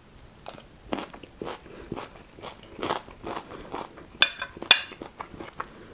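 Close-up chewing of a mouthful of fried rice and Chinese kale: a run of short crunches and mouth clicks, the two loudest about four seconds in.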